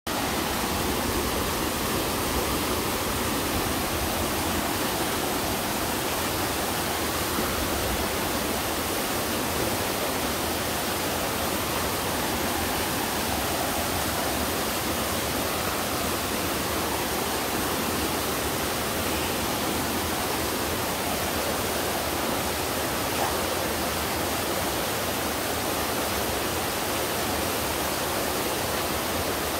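Twin waterfall: a steady, unbroken rush of falling water pouring into a mountain stream.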